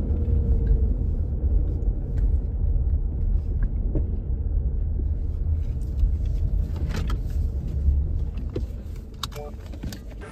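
Car driving: a steady low road rumble that eases off over the last couple of seconds, with a few light clicks near the end.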